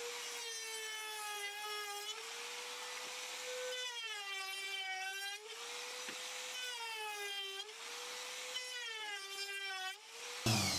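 Cheap no-name Chinese trim router running at high speed with a steady whine. The pitch drops about four times as the bit cuts into the edge of a wooden board and climbs back as it comes free, then it stops near the end.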